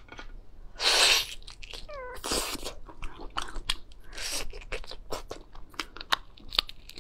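Close-up eating of slipper lobster: many sharp clicks and crunches of shell being bitten, with a few longer, louder smacking or sucking noises, the loudest about a second in. A brief high falling tone sounds just before two seconds in.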